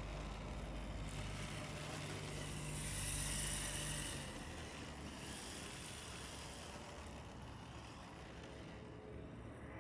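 Electric radio-controlled drift car (Reve D RDX) running and sliding on asphalt. Its motor and tyre hiss swell as it passes close, about three to four seconds in, then fade as it drives away.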